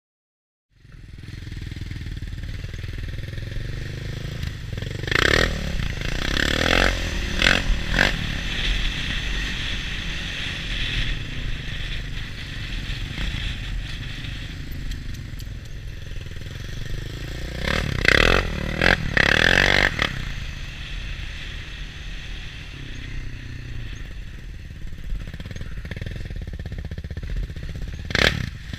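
Utility ATV's engine running as it rides along a snowy trail, heard from on board. It comes in about a second in, and is broken by loud clattering bursts around five to eight seconds in and again around eighteen to twenty seconds.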